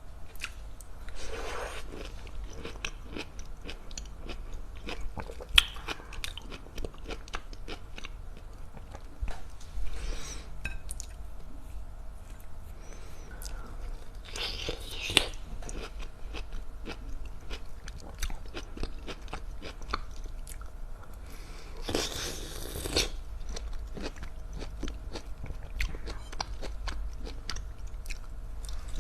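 Close-up mouth sounds of someone eating tangerines: wet biting and chewing of the segments, with many small clicks and a few louder juicy stretches.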